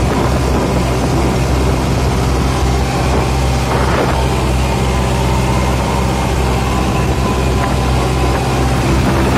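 Kubota tractor's diesel engine running steadily at high revs, near its full 2500 rpm, as the tractor drives along at speed.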